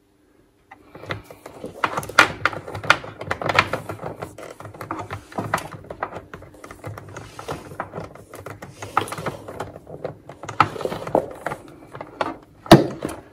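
Power lead being wound by hand around the cable-wind hooks of a carpet cleaning machine: irregular rubbing, slapping and light clatter of cable against the machine. There is one sharper knock near the end.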